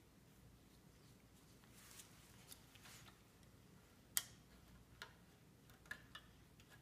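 Faint scattered clicks and ticks of a palette knife blade working against and under lifting brass marquetry on a Boulle-work box, the sharpest click about four seconds in.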